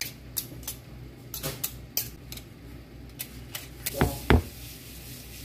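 Kitchen utensils clicking, tapping and scraping against a plastic mixing bowl while cake batter is stirred, with two louder knocks about four seconds in.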